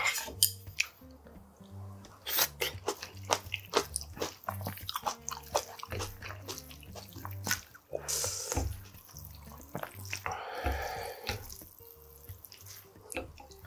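Wooden chopsticks clicking against a ceramic plate and wet noodles squishing as cold ramen is tossed with its sauce and toppings, many short clicks in quick succession. Background music plays underneath.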